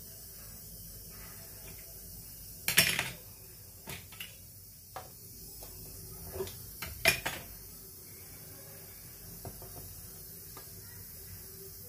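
Kitchen utensils handled on a marble countertop: two sharp clacks, about 3 seconds in and again about 7 seconds in, with a few lighter knocks between, over quiet room tone.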